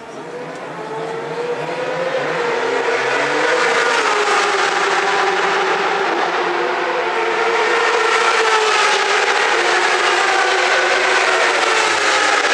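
Racing motorcycle engine noise, building over the first few seconds and then holding loud and steady, its pitch slowly wavering.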